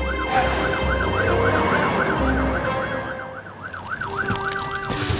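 Cartoon fire-truck siren wailing quickly up and down, about three times a second. Under it is a low engine brumming that stops about three seconds in.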